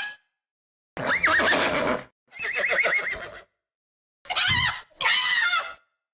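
An animal call with a wavering pitch, played as four short sound-effect clips one after another, each cut off abruptly with dead silence between them.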